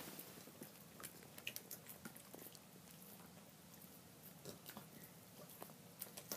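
A Cavalier King Charles Spaniel gnawing a hard dental chew bone: faint, irregular clicks of teeth on the bone.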